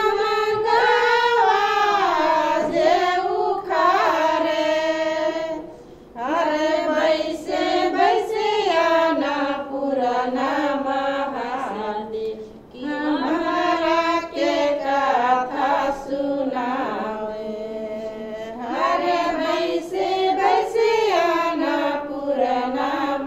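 Women singing a Tharu Jitiya festival song in long, held phrases, with short breaths between phrases about six and twelve seconds in.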